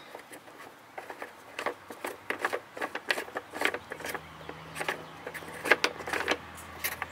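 Plastic thumb knob on a lawn tractor's air filter cover being turned by hand, giving an irregular run of small clicks and scrapes. A faint low hum comes in about four seconds in.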